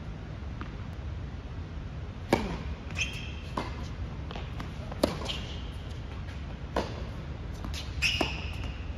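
Tennis balls being struck and bouncing on an indoor hard court: a handful of sharp pops, the loudest about two and five seconds in, with short sneaker squeaks between them, over the steady low hum of a large hall.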